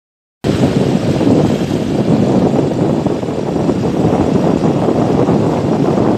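Loud, steady wind rush and road noise of a moving motorcycle, heard from the rider's seat. It cuts in suddenly about half a second in, after silence.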